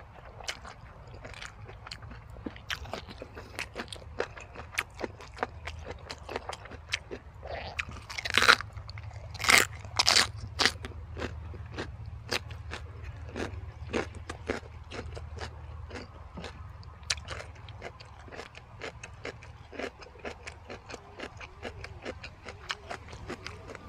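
Close-up chewing and crunching of jellyfish salad and raw vegetables: many small crisp clicks throughout, with a few louder crunches about eight to eleven seconds in.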